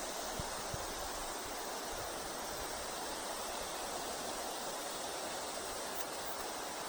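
Steady rush of river water flowing, with a couple of faint clicks near the start.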